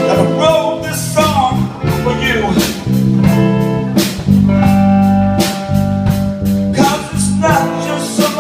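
A live band playing a song: guitar over sustained bass notes and a regular beat of drum hits, with pitch-bending lead lines.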